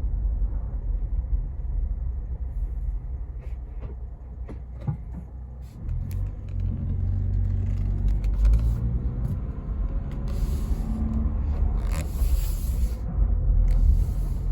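Cabin sound of a 2022 Ford Bronco Badlands with the 7-speed manual driving, a steady low rumble that grows heavier about six seconds in. Under it runs an intermittent grinding, scraping noise. The owner likens it to a washing machine cycle or scraping ice, and rules out the brakes and the clutch because it comes with neither in use.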